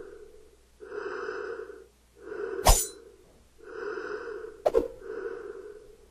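Slow, heavy breathing behind a rubber mask, breaths in and out of about a second each, one after another. Two sharp clicks cut across it, the louder a little under three seconds in and a second one near five seconds.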